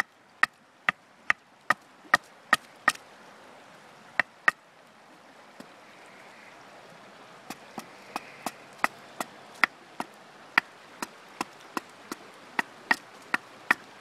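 Axe blade chopping into a wooden handle blank, hewing it flat: a run of sharp chops about two or three a second, a pause of about three seconds after the first few seconds, then another steady run of chops to the end.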